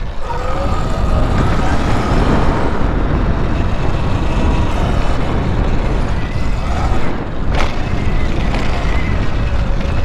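Wind buffeting the microphone while riding an electric bike on a trail, a loud steady rumble, with a faint thin whine over it. A single sharp knock comes about seven and a half seconds in.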